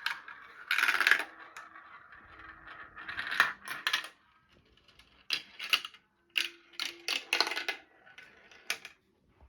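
Marbles rolling and clattering down a marble run, heard as separate bursts of rapid clicks and rattles with short pauses between them.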